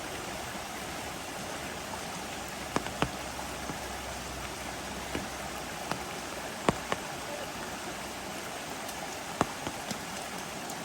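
Steady rain falling, with a scattered handful of sharp close taps.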